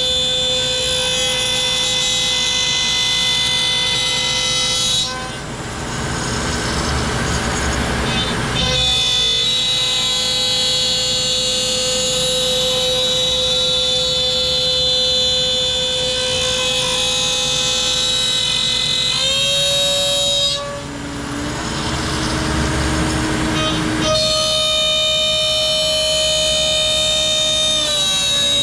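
CNC router cutting through ash: a loud, steady, high whine of many held tones. Twice, about 5 seconds in and again past the middle, it turns rougher and noisier for a few seconds, with the tones shifting in pitch. The noise comes from a deep depth of cut, which the maker thinks a shallower pass would quiet.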